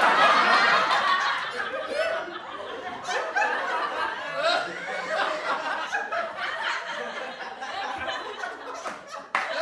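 People laughing and chuckling, several voices overlapping. The laughter is loudest at the start and gradually dies down, then breaks off sharply near the end.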